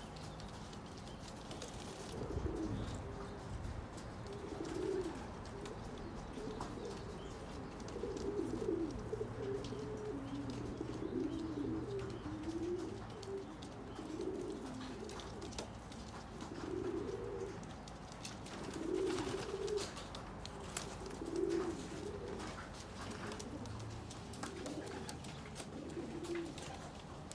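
Young racing pigeons cooing, several birds calling over one another in short, irregular low coos that keep up throughout.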